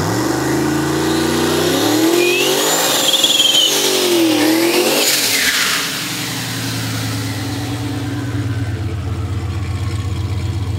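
Turbocharged Cadillac CTS-V V8 revving hard through a burnout, with high whistling and squealing glides over it. About six seconds in it settles to a lower, steady running note as the car rolls forward.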